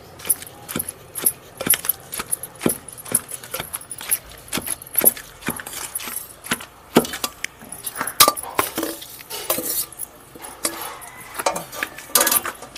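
Wooden pestle pounding red chillies and tamarind pickle in a stone mortar: repeated sharp thuds at about two strokes a second, uneven in strength, with a steel spoon clinking against the stone between strokes.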